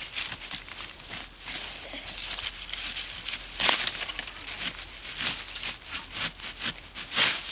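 A metal blade scraping and hacking into soil around a bamboo shoot's base, with dry bamboo leaves rustling: a run of irregular short scrapes, the loudest a little past halfway and another near the end.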